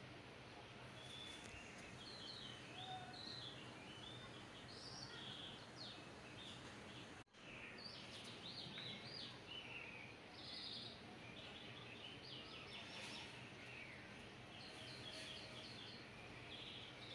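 Faint chirping of small birds, many short high calls over a steady low hiss, with the sound cutting out for a moment about seven seconds in.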